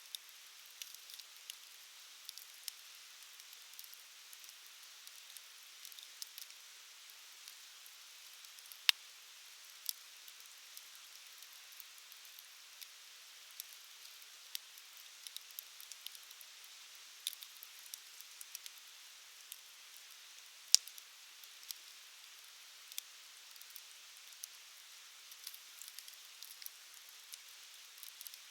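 Wood campfire crackling, with a faint steady hiss and many small sharp pops. Two much louder pops come about a third of the way in and about three-quarters through.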